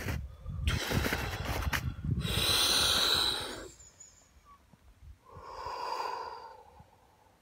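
Deep, forceful breathing of a man sitting in ice-cold water, used to control the breath against the cold. There is a long, loud breath out about two seconds in, and a softer breath near the end.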